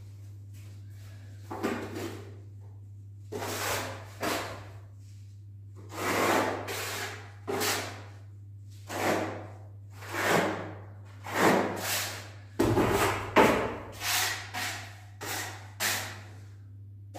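A hand plastering trowel scraping decorative bark-beetle (короед) plaster across a wall in a series of short strokes, roughly one a second, over a steady low hum.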